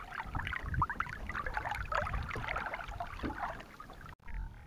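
River water splashing and lapping irregularly around a hand holding a piauçu fish at the surface beside a boat's hull, the fish being let go after capture. The sound cuts off suddenly near the end.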